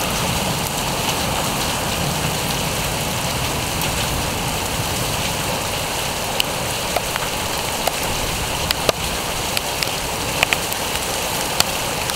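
Heavy rain falling steadily, with sharp ticks of drops striking close by that come more often in the second half.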